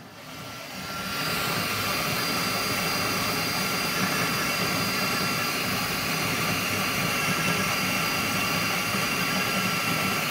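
FlashForge Adventurer 5M 3D printer running mid-print at high speed: a steady whir of its cooling fans and moving print head, with a few steady whining tones. It builds up over about the first second, then holds level.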